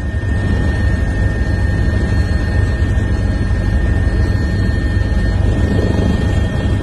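Steady aircraft engine noise as heard from on board: a constant low rumble with a thin, steady high whine over it.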